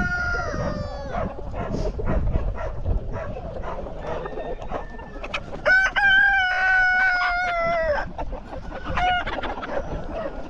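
Cockerels crowing among clucking chickens: one crow tails off about a second in, a loud crow of about two seconds comes just past halfway, and a short crow follows about a second later.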